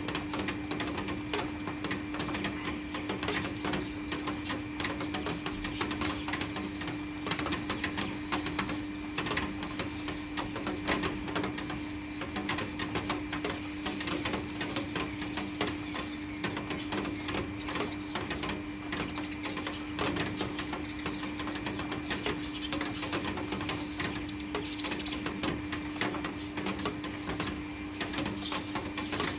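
Heavy rain falling, dense drops pattering and ticking on hard surfaces, with a steady low hum underneath.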